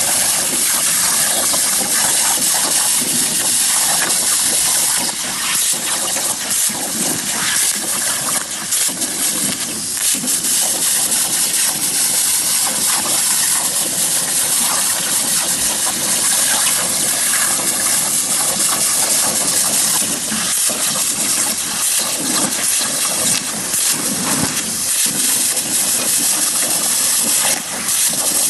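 CNC plasma torch cutting metal: a loud, steady hiss of the plasma arc and gas jet, with a rough, flickering edge.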